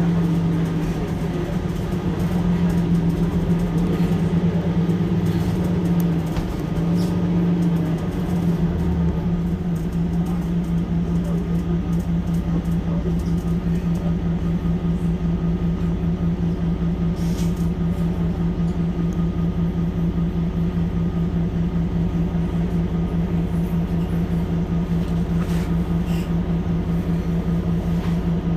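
Mercedes-Benz Citaro C2 Hybrid city bus standing at a stop with its diesel engine idling, a steady low hum. About eight seconds in the note settles into an even, fast pulse with a deeper rumble underneath.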